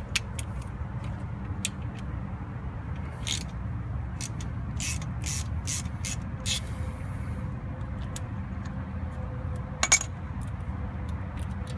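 Irregular metallic clicks and clinks of a Torx bit on an extension working out the ABS sensor screw on a truck's wheel hub, with one louder metal clink about ten seconds in.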